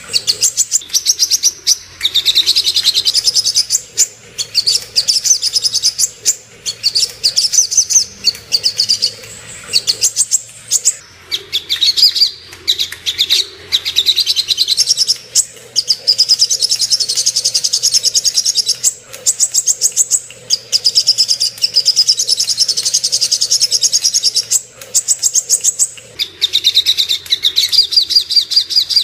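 Sogok ontong (little spiderhunter) singing: loud, fast-repeated high-pitched notes run together into chattering trills, in phrases of a few seconds broken by short pauses, over a faint low hum.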